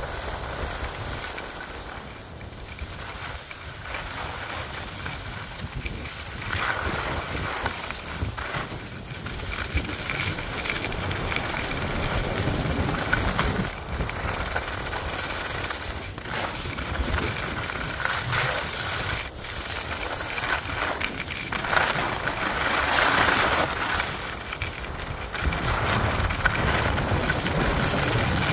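Skis sliding and scraping over packed snow on a groomed run, a continuous hiss that swells and fades with each turn, mixed with wind rushing over the moving camera's microphone.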